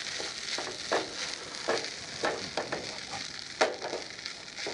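Fried rice sizzling in a pan as it is stirred with a wooden spatula, with irregular scrapes and knocks of the spatula against the pan. There is one sharper knock about three and a half seconds in.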